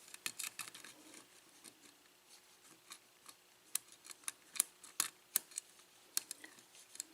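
Lock pick working the pin stacks inside a Schlage six-pin pin-tumbler cylinder lock under light tension: scattered, irregular small clicks, sparse at first and sharper from about halfway on.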